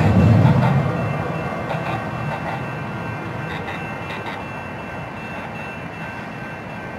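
San Diego Trolley SD100 light-rail train passing close and pulling away. A low rumble fades about a second in, leaving a fainter running sound with a thin steady whine and a few wheel clicks that keep dying away.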